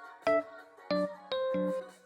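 Background music: a soft plucked-string melody, single notes picked out a few times a second.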